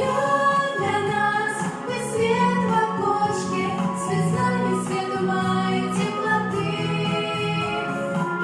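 Female voices singing a song in harmony over a backing track.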